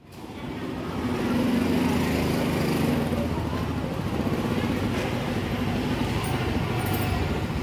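Street noise: a motor vehicle engine running steadily, with voices in the background, fading in over the first second.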